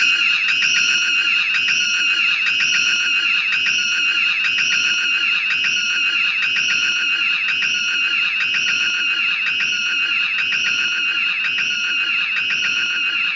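A loud, shrill, high-pitched sound looping without a break, its short pattern repeating about three times every two seconds.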